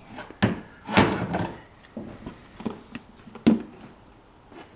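Light knocks and plastic clatter as a clear plastic funnel is handled and set into an engine's oil filler neck: about half a dozen separate thuds, the loudest about a second in and again past three seconds.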